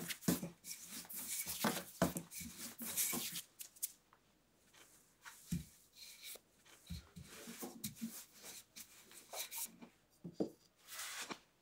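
Wooden rolling pin rolling out tart dough on a floured silicone baking mat: rubbing and soft knocks, busy for about three seconds, then sparser with a few separate knocks.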